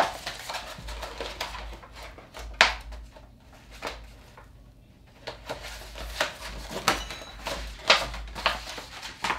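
An Infusible Ink transfer sheet being handled and laid onto a plastic cutting mat: paper rustling with scattered sharp crackles and taps, the sharpest about two and a half seconds in and again near eight seconds.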